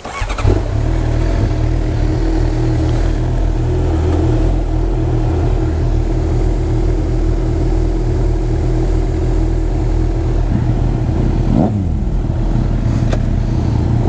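Suzuki GSX-R sportbike engines idling steadily at a standstill, an even low-pitched run with no revving. A short falling whine cuts across about three-quarters of the way through.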